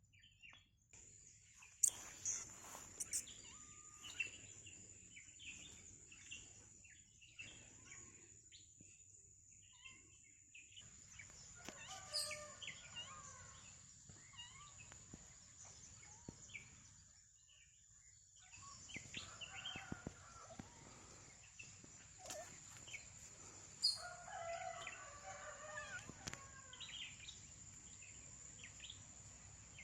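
Faint outdoor ambience of birds calling: short chirps throughout, with a few longer calls about a third of the way in and again around two-thirds through, over a steady high-pitched whine.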